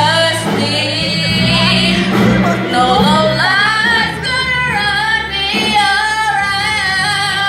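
Music with a solo singing voice, long held notes that bend in pitch, over a steady low accompaniment.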